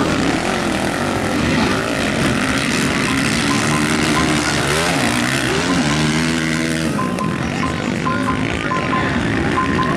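Motocross dirt bike engines revving up and down as the bikes race through corners and over jumps, the pitch climbing and falling with each throttle change. A short high tone repeats on and off in the last few seconds.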